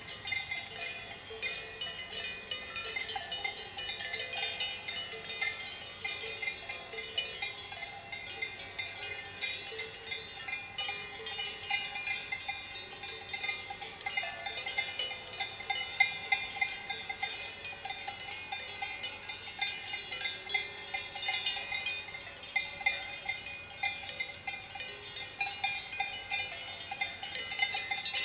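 Swiss cowbells on a grazing herd of cows, many bells clanking irregularly and overlapping in a continuous jangle of ringing tones as the cows move their heads.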